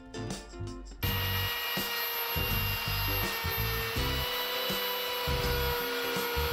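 Electric plunge router running and cutting a narrow groove in wood: a steady whine with cutting noise that starts suddenly about a second in, over background music.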